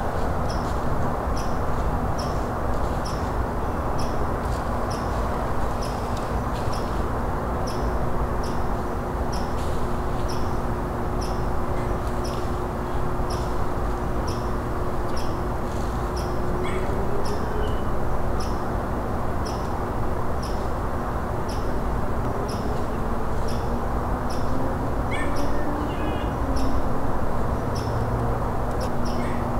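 Steady low outdoor rumble with a faint hum that slides up in pitch twice, a faint high ticking about twice a second, and a few short bird calls.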